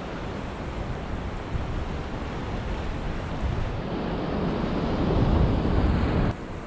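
Ocean surf washing against the boulders of a rock jetty, with wind buffeting the microphone. The wash swells louder from about halfway through and breaks off suddenly near the end.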